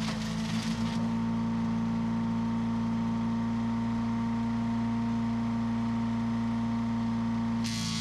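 Small gas-engine wood chipper running steadily at a constant speed while branches are fed into it. Near the end the sound turns brighter and harsher.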